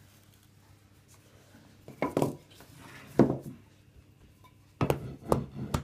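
Plastic rolling pin knocking and clattering against a ceramic plate as dough is rolled on it: a couple of sharp knocks about two and three seconds in, then a quick run of knocks near the end.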